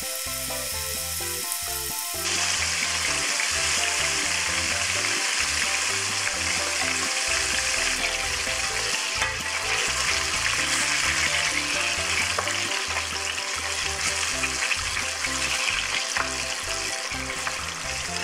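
Starch-coated chicken wings deep-frying in hot oil: a steady sizzle that gets louder about two seconds in. Soft background music plays under it.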